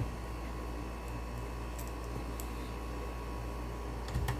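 Steady low hum with a few faint ticks, and a couple of short knocks near the end: small parts and hands being handled on a monitor's sheet-metal chassis.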